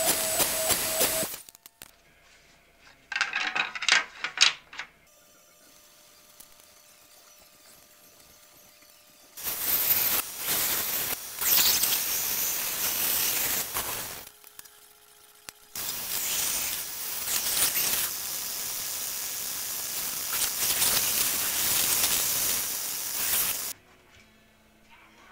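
Power saws cutting wood. A table-saw cut stops about a second in, followed by a few sharp knocks. Later come two long stretches of band-saw cutting through a stack of wood strips, separated by a short quiet gap.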